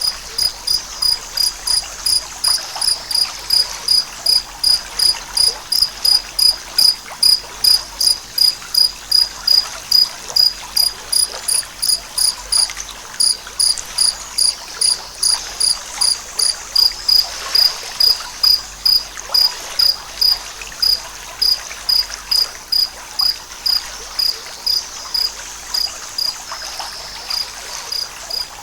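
A cricket chirping loudly and steadily, about two to three high-pitched chirps a second, with a short pause about halfway through. Faint running water of a forest stream sits underneath.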